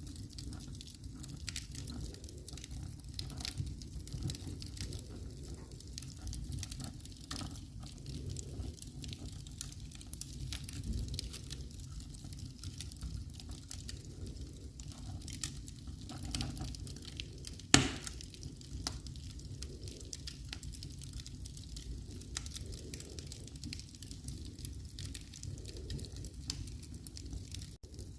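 Wood fire burning in a fireplace, crackling with frequent small snaps over a low steady rumble of flames, and one loud pop about two thirds of the way through.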